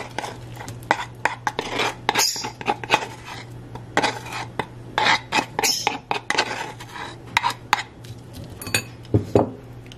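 Metal spoon clinking and scraping against a ceramic bowl as mashed garlic is scraped into it: many quick, irregular clicks.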